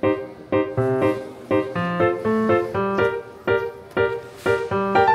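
Background music: a piano playing a steady, evenly paced run of struck notes.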